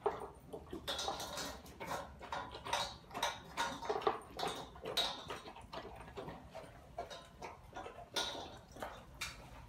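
Dogs eating dry kibble from stainless steel bowls: irregular crunching and clinks against the metal, with claws clicking on the tile floor.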